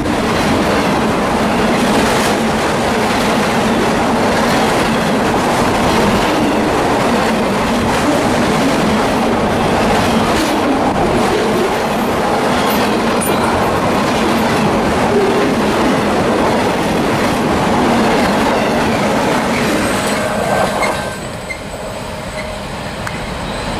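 CSX freight train of auto rack cars rolling past close by on steel wheels, a loud steady din; about 21 seconds in it drops to a quieter sound as the train's tail moves away.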